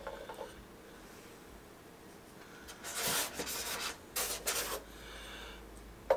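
Handling noise from swapping a part on a resin statue: one longer rub about three seconds in, then a few short, quick scrapes.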